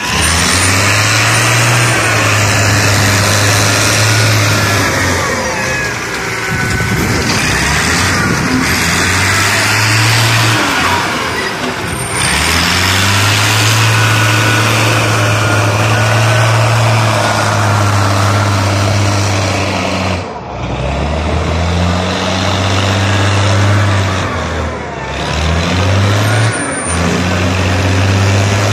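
Heavy diesel engine running loud and close, its note holding steady for stretches and then dipping and climbing back up several times as it is revved.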